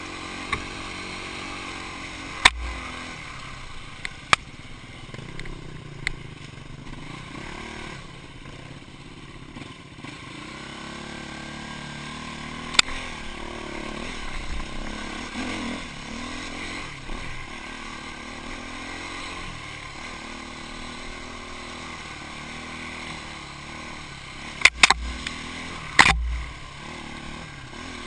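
Off-road motorcycle engine running at constantly changing revs, rising and falling as the bike is ridden over rough ground. Sharp knocks cut in now and then, with a loud cluster near the end.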